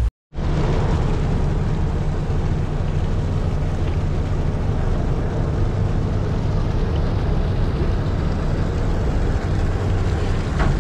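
Steady low drone of a passenger ship's engines heard from the deck, with a wash of water and wind noise over it. A brief dropout to silence comes just after the start.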